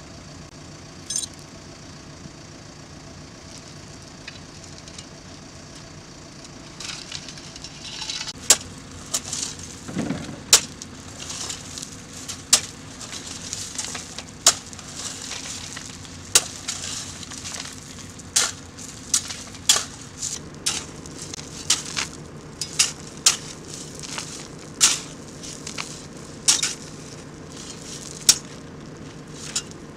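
Steel shovels scraping and biting into loose gravel, one stroke every second or two from about seven seconds in, over a steady low engine idle from a loader.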